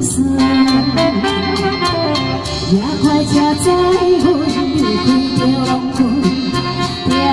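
Live music: a woman singing through a microphone and PA, accompanied by saxophone over a backing track with a steady drum beat.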